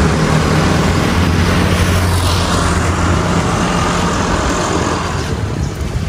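A motor vehicle engine running steadily, with a low hum under road and wind noise.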